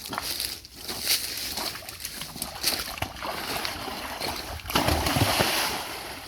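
Water splashing and sloshing, with scattered sharp knocks and a louder stretch about five seconds in.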